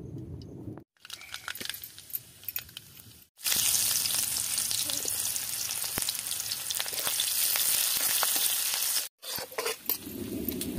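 Sliced onions frying in hot oil in a blackened wok, a steady loud sizzle that starts suddenly about three and a half seconds in after a few faint crackles. Near the end, after a short break, a spatula clicks and scrapes against the wok as the onions are stirred.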